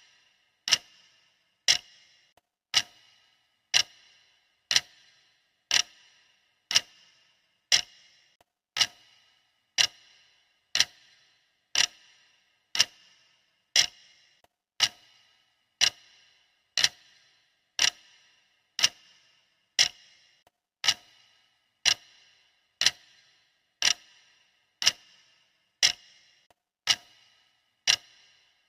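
Clock ticking steadily, one sharp tick about every second, each with a short metallic ring.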